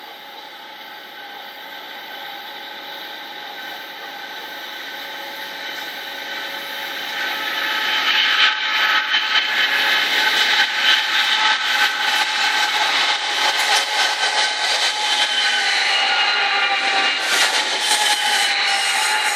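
An oncoming train, growing steadily louder for about eight seconds and then passing close. It makes a dense clatter of wheels on the rails and several steady whining tones, which dip slightly in pitch near the end.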